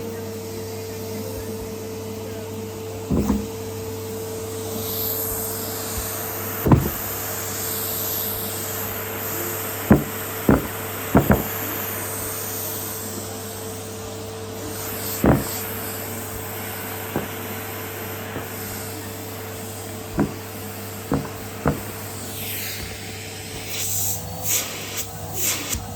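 Henry cylinder vacuum cleaner running with a steady motor whine, and sharp knocks every few seconds. A quick run of clicks comes near the end.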